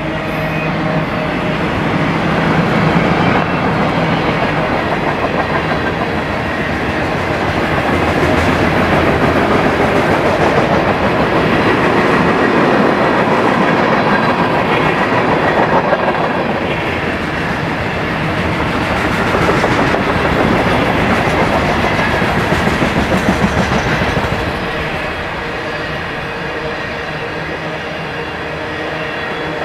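BNSF freight train rolling past close by, a steady rumble of steel wheels on rail with fine rhythmic clicks. It eases off a little about 24 seconds in.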